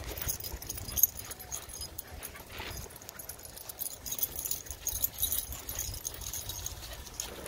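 Wind rumble on the microphone of a moving electric unicycle, with light metallic jingling and a dog's brief whine about two and a half seconds in. A single sharp knock about a second in.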